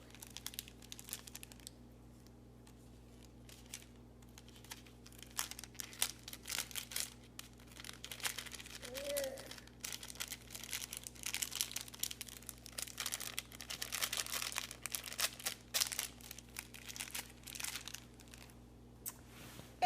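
Plastic packaging crinkling and rustling as it is handled, in irregular crackles that grow denser after the first few seconds and thin out near the end.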